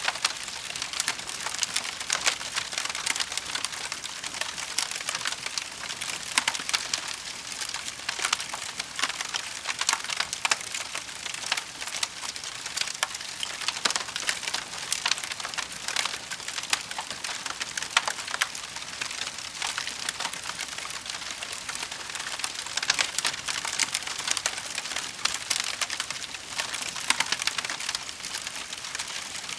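Fireplace fire crackling steadily: a dense run of small pops and snaps over a soft hiss.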